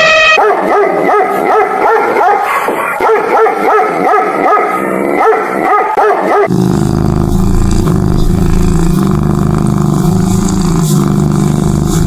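A dog whining in a quick series of short pitched yips, about three or four a second, changing about halfway through to a lower, steadier drawn-out vocal sound.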